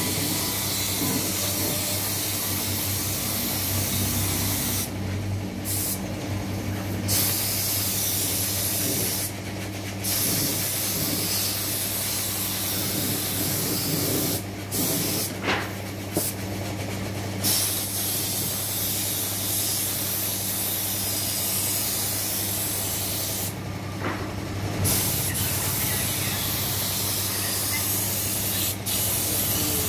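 Compressed-air paint spray gun hissing as it sprays paint, in long runs broken by several short pauses where the trigger is let go, over a steady low hum.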